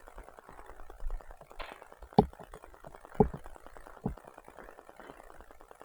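Footsteps on a floor as a person walks through an apartment: three dull thumps about a second apart over faint rustling.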